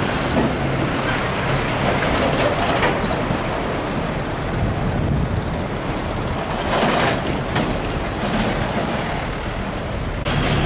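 Scania P310 tractor-trailer's diesel engine running as the truck pulls away with its loaded flatbed trailer, mixed with tyre and road noise, with two brief noisier surges about a quarter and two-thirds of the way through.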